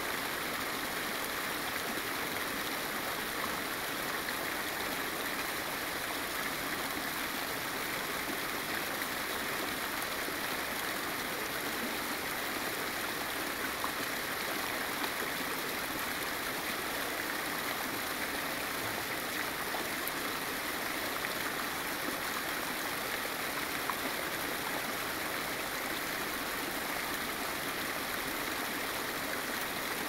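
Steady, even rushing noise like flowing water.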